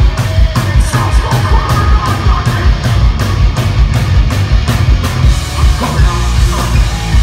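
Heavy rock band playing live and loud: electric guitars, bass and a drum kit driving a fast, steady beat.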